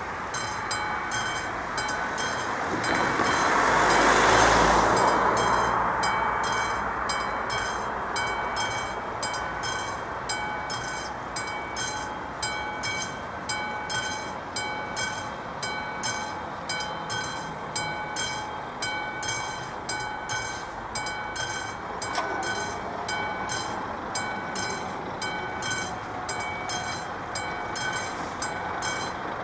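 Classic mechanical warning bell of an AŽD 71 level-crossing signal ringing in steady, evenly spaced strokes, warning that a train is approaching. A car drives past about three to five seconds in, the loudest sound.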